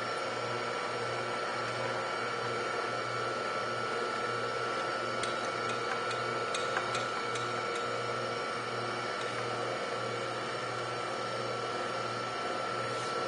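Sanford surface grinder running with a steady hum and a constant high whine over a low, evenly pulsing throb. A few light clicks come about halfway through as its table handwheels are cranked.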